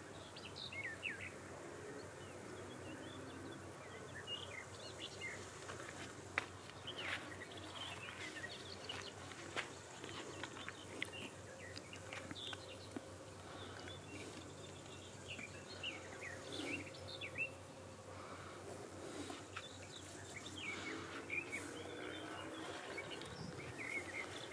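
Small birds chirping in short, irregular calls over a steady outdoor background hum, with an occasional sharp click.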